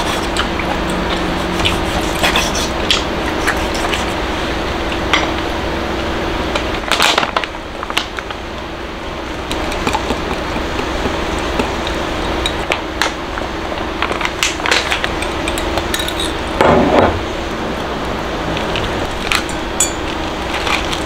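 Kitchen prep clatter: a knife tapping and cutting on a wooden board, then a metal whisk clinking against a glass measuring cup as batter is mixed. Scattered clicks and knocks run over a steady low hum.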